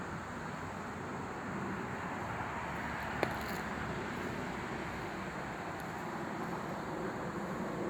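Steady outdoor background noise, a low rumble and hiss with no distinct source, broken by one sharp click about three seconds in.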